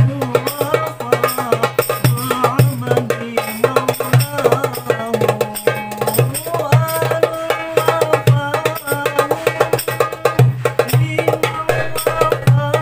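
Cast-aluminium darbuka with a synthetic head played by hand in a fast hadroh rhythm: rapid light finger strokes with a deep dum about once a second, over a sholawat melody.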